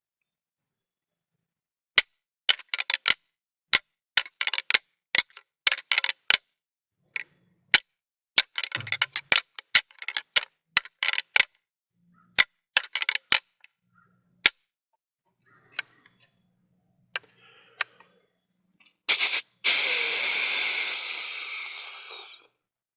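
Rattling antlers clashed and ground together in a rattling sequence: many sharp clacks in quick clusters for about twelve seconds. Then a hunter's mouth-made whitetail snort-wheeze: a short snorting puff followed by one long wheezing hiss of about three seconds, the call a dominant buck makes to challenge another buck in the rut.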